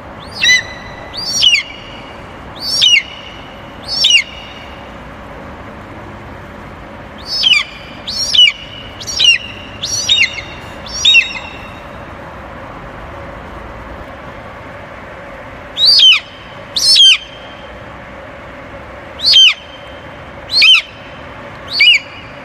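Eagle calling: short, shrill, high-pitched cries that slur downward, given in bursts of two to six with pauses between, over a steady background hiss.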